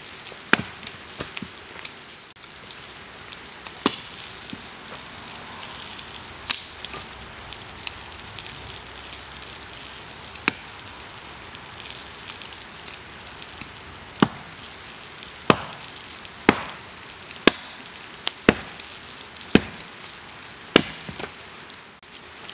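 Axe strikes splitting firewood on a wooden chopping block: about a dozen sharp chops, spaced irregularly at first, then about one a second over the last third. Under them a steady sizzle of sausages frying on a cast iron Dutch oven lid over the campfire.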